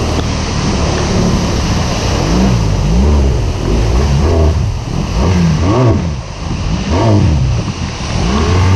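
Motorcycle engine on the move, its pitch rising and falling again and again as the throttle opens and closes, over a steady rush of wind noise.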